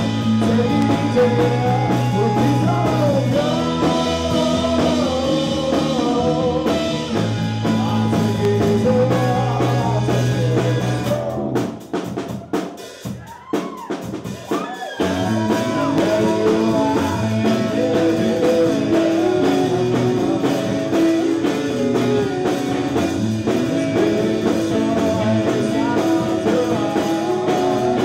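Rock band playing live: electric guitars and drum kit under a male lead vocal. About twelve seconds in the band cuts out for roughly three seconds, leaving only a few scattered hits, then crashes back in.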